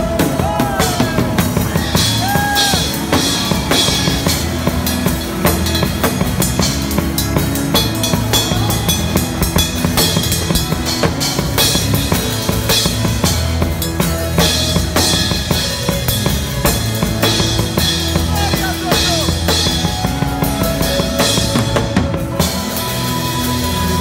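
Acoustic drum kit played live and busily: rapid snare, kick drum and cymbal strokes over a band's sustained bass line. The drumming eases about two seconds before the end.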